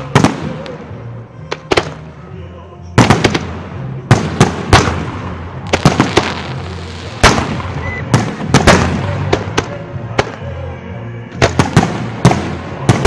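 Aerial firework shells bursting: an irregular run of sharp bangs and crackles, bunched into volleys a few seconds apart.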